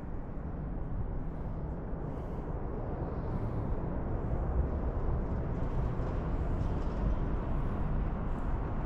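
Steady outdoor city background noise: an even low rumble with no distinct events.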